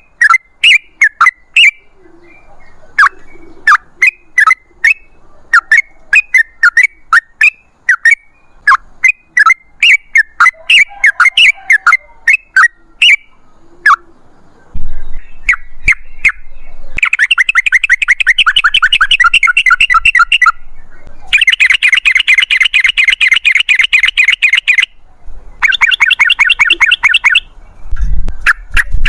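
Yellow-vented bulbul (trucukan) song: loud, sharp chirping notes about one or two a second, then from about halfway three long, fast rattling trills, the 'ropel' chatter that keepers use to set other birds singing.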